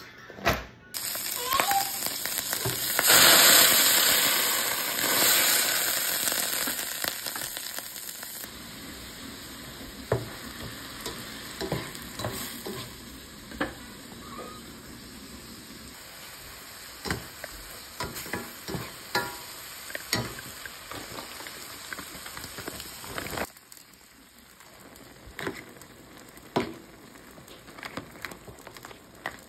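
Chopped onion and red pepper sizzling in hot oil in a frying pan, loudest a few seconds in and then settling to a steady sizzle, with a spatula clicking and scraping against the pan now and then. About three-quarters of the way through the sizzle cuts off, leaving quieter sound with a few clinks.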